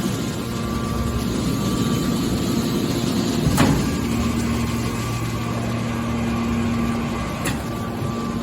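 Hydraulic can baler running with a steady machine hum, with a sharp clank about three and a half seconds in and a fainter one near the end.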